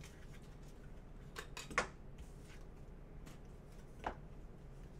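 Trading cards being handled: a few faint, soft clicks and slides, with a steady low room hum underneath.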